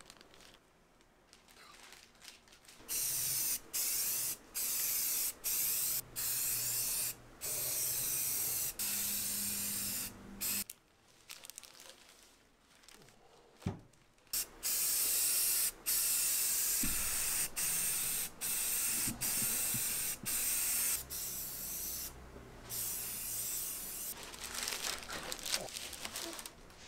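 Aerosol spray paint can spraying in a series of bursts of hiss, some long and some short, with brief breaks between them, starting about three seconds in. A single sharp knock comes about halfway through.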